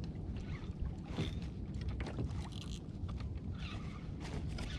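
Water lapping and sloshing against a kayak hull, with scattered small knocks and clicks over a steady low rush of wind and sea.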